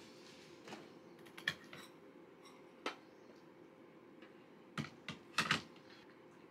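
Scattered light clicks and taps in a quiet room, with a quick cluster of them about five seconds in. A faint steady hum sits under them.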